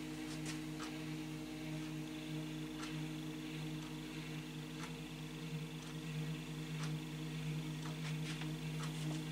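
Stepper motor of a hobby CNC machine driving the carriage along the X-axis lead screw at a steady speed, giving an even hum of several tones with a few faint ticks.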